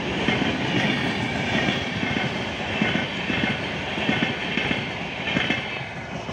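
Indian Railways LHB passenger coaches running past at speed, wheels clattering over the rail joints in a steady rhythm under a rushing hiss of wheels on rail. The noise eases off a little near the end as the last coaches go by.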